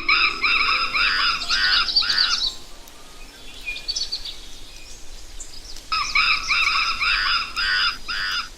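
A bird calling: two runs of short, repeated, ringing notes, the second about three and a half seconds after the first, with a fainter call between them.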